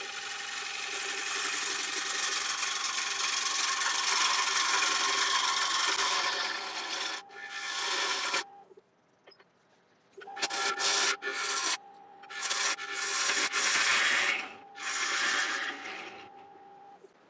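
Wood lathe running with a steady whine while a turning tool cuts the inside of a large, dry yew bowl: one long hissing cut of about seven seconds, then a few shorter cuts. The lathe stops briefly just before the middle, starts again, and stops near the end.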